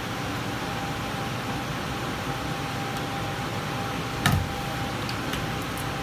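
Steady fan-like background noise with a faint steady tone, and a single knock about four seconds in as cables are handled at a plastic switch box.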